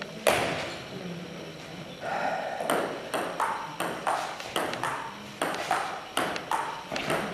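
Table tennis ball being played in a rally: a single hit just after the start, then from about two seconds a steady run of sharp clicks, about two a second, as the ball strikes the bats and the table in turn.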